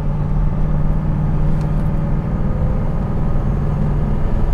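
Supercharged LS V8 in a Nissan 240sx running at a steady cruise, heard from inside the cabin as a low, even drone.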